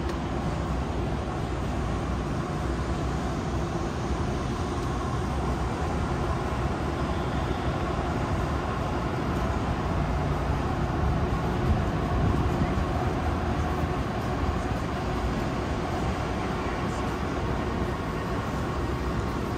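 Busy city street ambience: steady traffic noise with a low rumble, swelling slightly about twelve seconds in.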